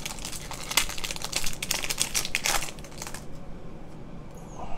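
Foil trading-card pack wrapper crinkling and crackling as it is torn open by hand: a dense run of crackles for about three seconds, then quieter.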